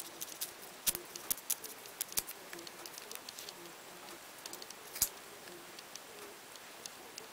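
Small snips and clicks of a blade slitting and peeling back the white outer jacket of an LED tube's lead cable, busiest in the first couple of seconds, with one sharper click about five seconds in.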